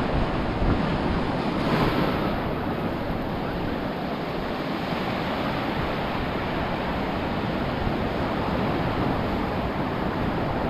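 Ocean surf breaking and washing up the beach, a steady rushing wash that swells a little louder in the first couple of seconds, with some wind buffeting the microphone.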